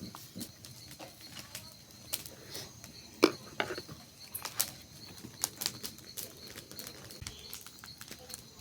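Cooking fire crackling with irregular sharp pops, the loudest about three seconds in.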